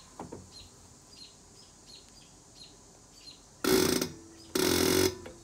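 Diesel injector nozzle on a hand-lever pop tester opening twice in quick succession, each a harsh hissing spray of fuel lasting about half a second. It is popping at about 2100 psi, just above the 2000 psi setting wanted.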